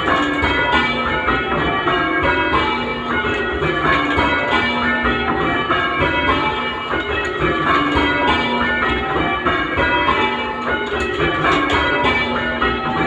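Full-circle change ringing on a light ring of six church bells tuned to A, tenor 8 cwt: four Thomas Mears II bells of 1843 and two John Warner bells of 1901. The bells strike one after another in a steady, continuous pattern, each stroke overlapping the hum of the ones before.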